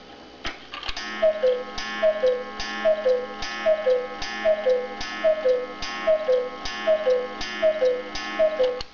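Black Forest cuckoo clock calling the hour: its long bellows sound the two-note cuckoo, high then low, about ten times at a steady pace, each call with a sharp click at its start. Ticking is heard for about a second before the calls begin.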